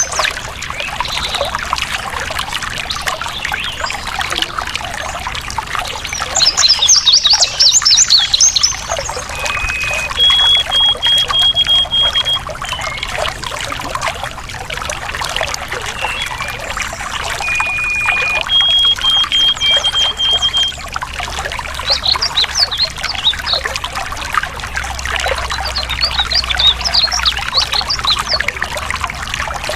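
Stream water trickling steadily, with songbirds singing over it: bursts of quick high chirps about seven seconds in and again near the end, and twice a bird gives one lower note followed by a run of short, even notes at a single pitch.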